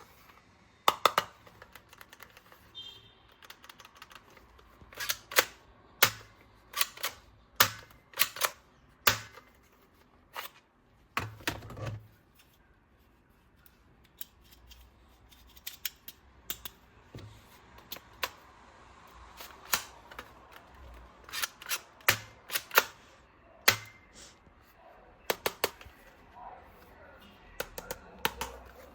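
Sharp plastic clicks and snaps, irregularly spaced and often in quick pairs or clusters, from toy guns and parts being handled and worked.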